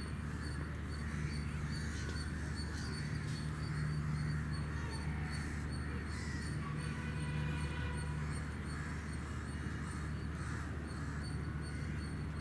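Open-air ambience: a steady low hum, with a second low tone that comes and goes every second or two, and faint distant bird calls.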